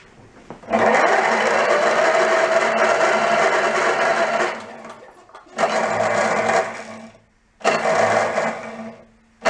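Electric starter motor on a Toro Personal Pace mower whirring in three runs, a long one of about four seconds and then two short ones, with the spark plug out. The starter is not dropping its gear into the flywheel and not cranking fast enough, which the owner puts down to a weak battery.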